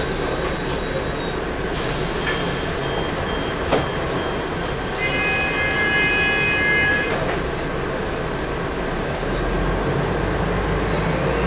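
Interior noise of a Volvo B10M bus's mid-mounted turbodiesel engine and body running on the move, with a single click early on and a steady pitched tone for about two seconds midway. Near the end the engine rumble strengthens and a faint turbo whistle rises in pitch as the bus pulls away harder.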